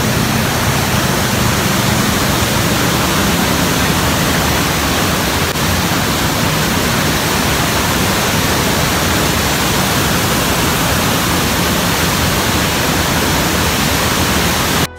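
Brown floodwater pouring through the open sluice gates of a river dam and churning down a rocky channel: a loud, steady roar of rushing water. The river is in flood, with the dam full to overflowing.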